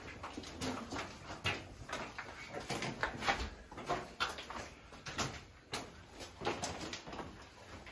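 Footsteps of several people walking on loose gravel and rock chips in a narrow rock-hewn tunnel, irregular steps about once or twice a second.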